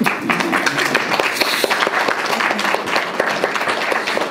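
Applause: many hands clapping at once in a dense, steady patter.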